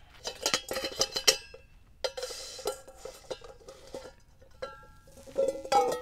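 A steel bowl ringing under irregular clinks and knocks while the hot cast copper brick cools in the water inside it. Just before the end come louder clanks as tongs strike the bowl and lift the brick out.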